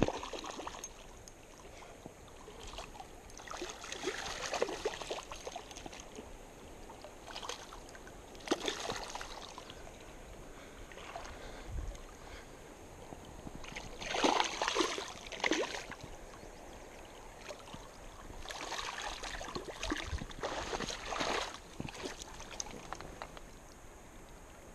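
A hooked trout splashing and thrashing at the water's surface in irregular bursts as it is played on a light spinning rod, over the steady wash of river water.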